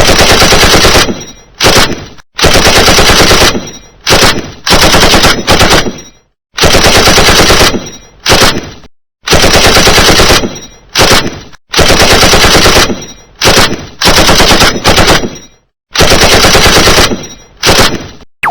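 Machine gun firing in over a dozen short bursts of rapid shots, each about half a second to a second and a half long, the sound trailing off in the brief pauses between bursts.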